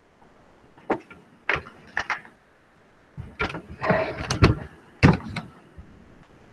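A run of sharp clicks and knocks from handling at a computer desk, mouse clicks among them, about eight in all, with the loudest cluster around four seconds in.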